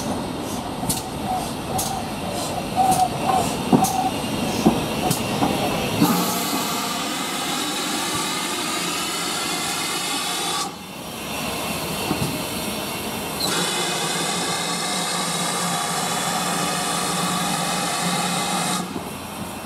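GWR Manor class 4-6-0 steam locomotive 'Dinmore Manor' coming slowly alongside, with spaced clanks and knocks from its wheels and a brief squeal. About six seconds in a loud, steady hiss of escaping steam starts; it cuts out briefly near the middle, starts again and fades just before the end.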